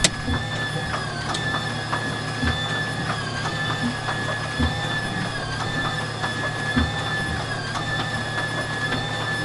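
Starter cranking a vintage aircraft radial engine, turning the propeller slowly over before the engine fires. A steady high whine sits over a low hum, and a low thud comes about once a second as the whine sags slightly.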